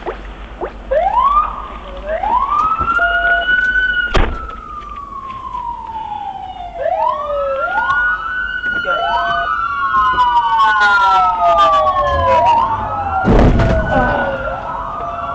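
Several emergency-vehicle sirens wailing and overlapping, each sweep rising quickly and then falling slowly. There is a sharp knock about four seconds in and a short thump near the end.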